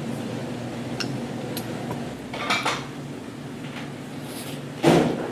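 Metal spoon and chopsticks clinking against stainless steel bowls and tableware while eating, a few light clicks followed by a louder knock near the end.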